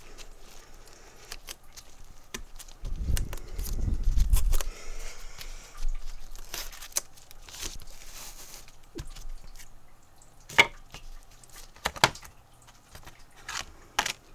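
Hands handling a 3D-printed plastic sanding block and sandpaper on a bench: a low thump about three seconds in, rustling and scraping, then a few sharp clicks near the end.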